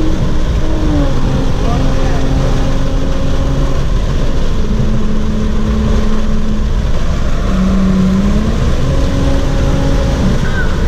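Car driving, heard from inside the cabin: steady road and engine rumble with a held tone that shifts pitch in a few steps.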